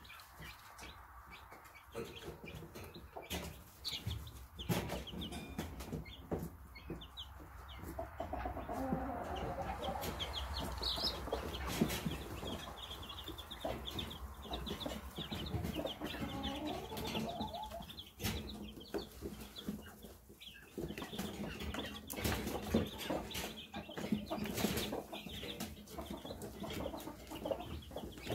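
Young chicks peeping in rapid high chirps, with a hen's lower clucking in two long stretches and scattered small clicks of pecking and scratching.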